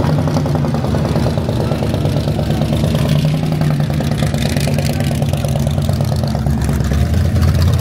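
Car engine idling with a steady low rumble and a fast, even pulse, getting a little heavier near the end.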